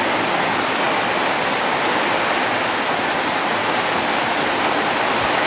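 Heavy rain falling steadily: a loud, even hiss of downpour.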